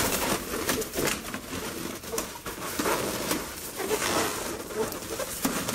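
Latex balloons squeaking and rubbing against each other in irregular, cooing-like squeaks as a 260 twisting balloon is tied onto a cluster of inflated balloons.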